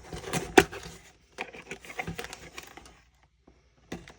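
Handling noises from unpacking small craft magnets: a run of light taps, clicks and packaging rustle, with one sharp tap about half a second in, then a pause and a single click near the end.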